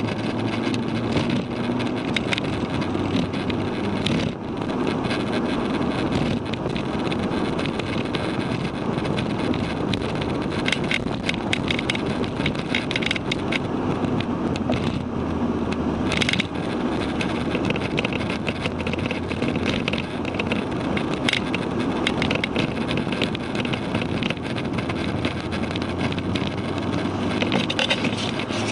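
A Mk6 Volkswagen GTI's turbocharged 2.0-litre four-cylinder engine running as the car drives on track, heard from inside the cabin along with steady road and wind noise. Scattered sharp clicks and knocks run throughout, the strongest about 16 seconds in.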